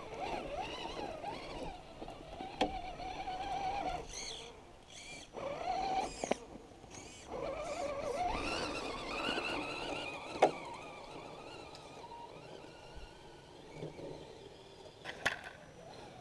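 An Axial SCX10 Honcho RC rock crawler's electric motor and gear drive whining, the pitch rising and falling as the throttle is worked. There are a few sharp knocks along the way, the loudest a little past the middle.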